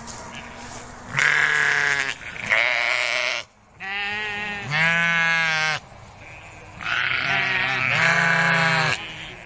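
Goat bleating over and over: a string of loud bleats about a second long each, with short pauses between them.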